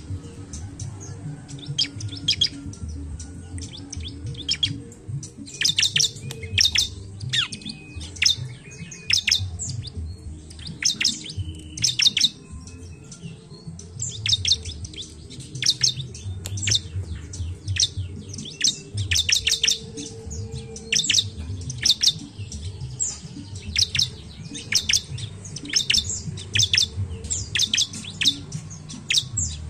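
Bar-winged prinia (ciblek) calling: rapid, high, sharp chip notes in short bursts, repeated every second or so, over a low background rumble.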